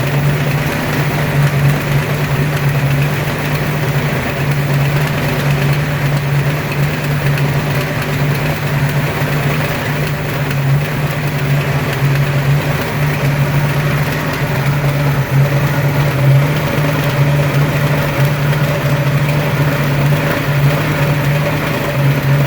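Ford 302 (5.0) small-block V8 idling steadily with an unidentified mechanical noise in its running. The owners can't place it and wonder if it is piston slap, a broken wrist pin or the timing chain.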